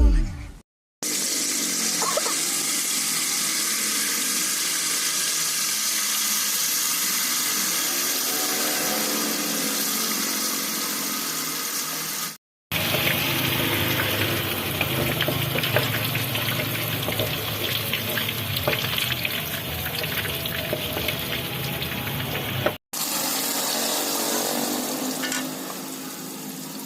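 Tap water running steadily into a sink, in three stretches broken by brief gaps.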